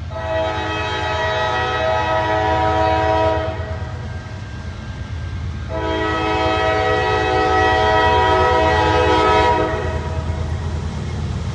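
Nathan K5LA five-chime air horn on a CSX freight locomotive sounding two long blasts, the first about three seconds and the second about four, over the low rumble of the passing train.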